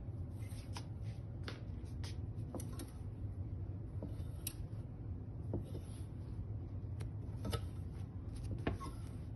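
Wire clothes hangers clicking and scraping against a metal rail as garments are pushed along one by one, with light fabric rustle. The clicks come irregularly, every half second to a second, over a steady low hum.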